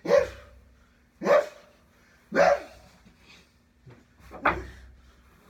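A person's sneezes, acted for a puppet: four loud, sharp sneezes about a second apart, the last after a slightly longer pause.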